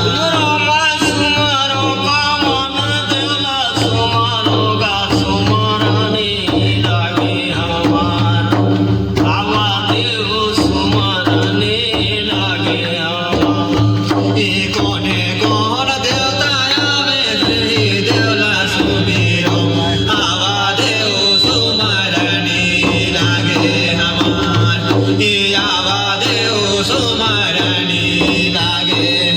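Indian devotional folk music: a wavering melody line over a steady, evenly repeating drum beat.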